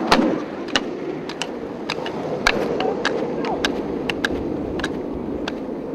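Buttboard wheels rolling fast on asphalt: a steady rumble with frequent sharp clicks as the wheels run over cracks and bumps in the road. It is loudest right at the start, as a rider passes close by.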